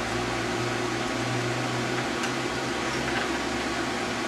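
Steady low mechanical hum with hiss, and a faint click or two.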